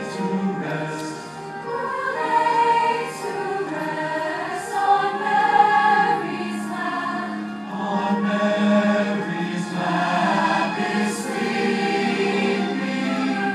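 A large massed choir singing a Christmas song, with sustained held notes.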